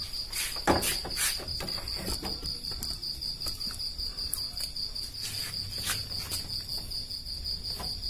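A cricket's steady, high, pulsing trill, with a few light clicks and rustles from hands working the motorcycle's wiring.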